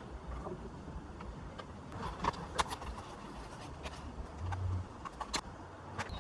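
Light clicks and knocks of a miter saw's dust chute being handled and fitted with its screws, over a low rumble, with a brief low hum a little past the middle.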